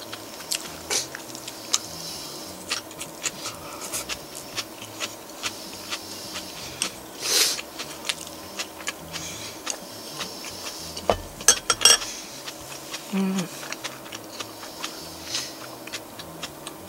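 Someone eating with chopsticks: chopsticks clicking against a rice bowl and dishes clinking, with chewing in between. The sharpest clinks come in a quick cluster a little past the middle.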